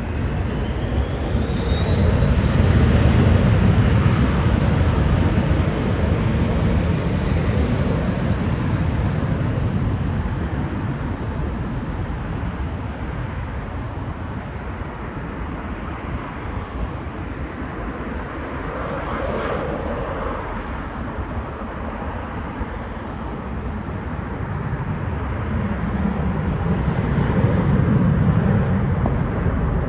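Twin Williams FJ44 turbofan engines of a Nextant 400XT business jet running, a steady jet rumble and roar with a faint rising whine near the start. It swells a few seconds in and again near the end.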